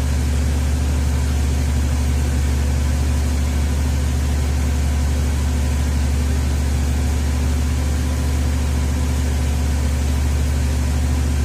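2004 Ford Freestar's V6 engine running steadily, with the passenger-side electric cooling fan running on high as a steady low hum. The driver-side fan is also commanded on but stays silent because its motor has failed.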